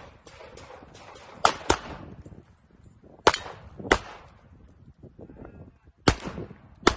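Six loud handgun shots fired in three pairs during a USPSA course of fire, with fainter pops in between.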